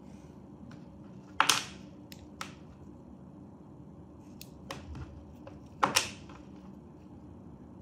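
Sharp clicks and taps from handling an Apple Watch Series 7 and its Nike sport band: two loud double clicks, about a second and a half in and again about six seconds in, with several lighter clicks between.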